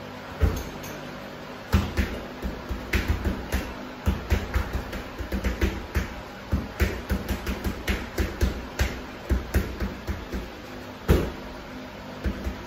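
Gloved punches landing on a leather heavy punching bag: one thud about half a second in, then a fast flurry of dull thuds, about two or three a second, with an especially hard hit near the end.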